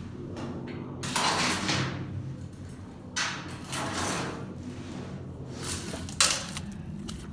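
Junk being shifted around in a dumpster: two long scraping, sliding noises, then a sharp knock just after six seconds in.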